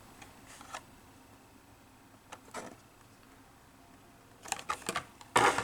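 A few short, scattered rustles and clicks of something being handled, a cluster of them near the end, with quiet in between.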